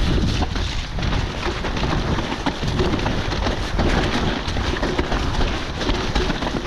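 Electric mountain bike riding down a wet, rough trail. A steady rumble of wind on the camera microphone runs under a constant run of rattles and knocks from the bike over the ground.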